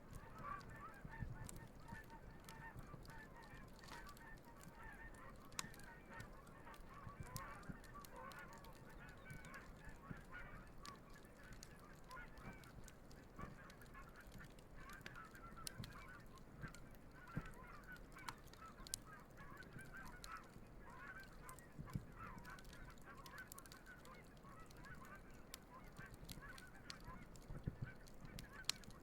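A flock of geese honking and calling continuously in a dense chatter, with scattered sharp crackles and pops from a wood campfire.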